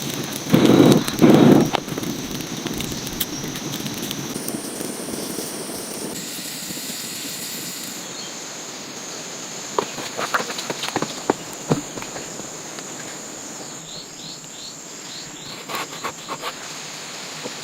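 Steady high-pitched insect drone of the forest, with scattered short knocks and rustles from handwork. A louder rustling thump comes about a second in.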